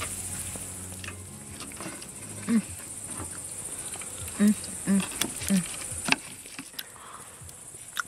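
Night insects, likely crickets, chirping steadily and high. There are a few short, low grunting sounds, four of them close together around the middle, and some light clicks of a fork against a wooden plate.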